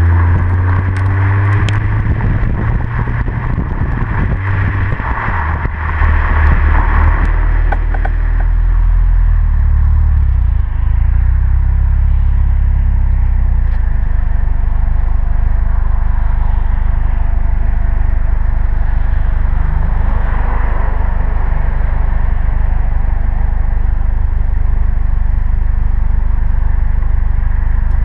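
2005 Honda Civic Si's 2.0-litre four-cylinder running through a Tanabe Medallion cat-back exhaust, heard right at the tailpipe while driving, with wind and road noise over the microphone. The exhaust drone changes through the first several seconds, then holds steady at an even cruise.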